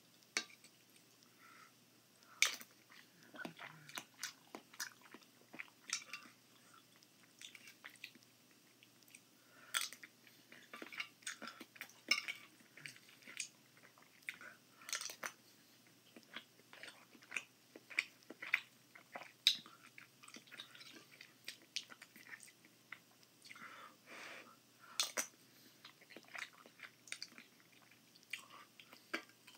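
A person chewing and eating a soft meal of eggs and ramen noodles close to the microphone, with many irregular sharp mouth clicks and smacks.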